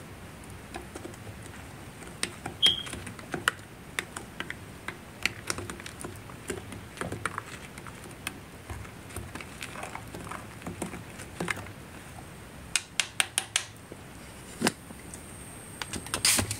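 A spoon stirring marshmallows and milk in a glass cup, with irregular light clicks of the spoon against the glass and a quick run of taps near the end.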